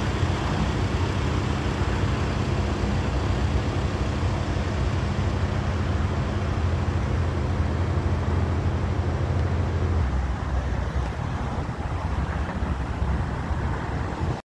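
Road traffic with a vehicle engine running close by, a steady low hum that drops away about ten seconds in, leaving the wider traffic noise.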